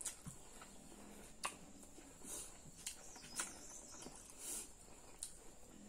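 Close-up eating sounds: scattered wet smacks and clicks of chewing, along with fingers mixing rice and curry on a plate.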